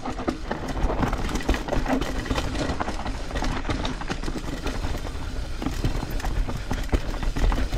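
Mountain bike rolling fast down a dirt trail: tyres running over dirt and roots, with frequent short clicks and rattles from the bike, under a steady low wind rumble on the microphone.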